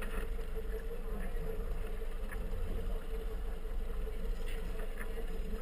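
Outboard motor of a small inflatable boat running steadily at low speed, a constant hum over a low rumble.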